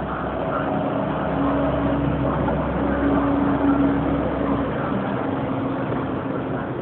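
Vehicle engines running steadily at a bus terminal: a low rumble with a faint steady hum over a wash of traffic noise. The rumble eases off about five seconds in.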